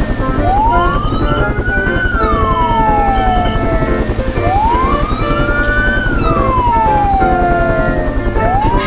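A wailing siren rising and falling slowly, a full cycle about every four seconds, over background music with a steady beat.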